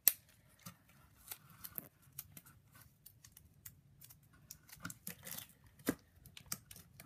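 Hands handling a cardboard shoebox and its cardboard ramp strip: scattered light clicks, taps and short scrapes, with a sharper tap right at the start and another about six seconds in.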